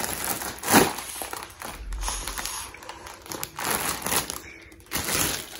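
Foil (Mylar) balloon crinkling and rustling in a series of separate bursts as it is squeezed and held to the mouth to draw helium from it.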